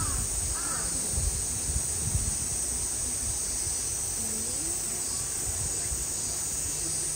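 Two harsh, crow-like bird calls within the first second, over a steady high-pitched hiss and low rumble of outdoor ambience.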